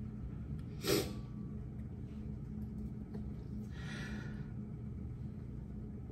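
A woman crying quietly: a short sob about a second in and a long sniffling breath around four seconds in, over a steady low room hum.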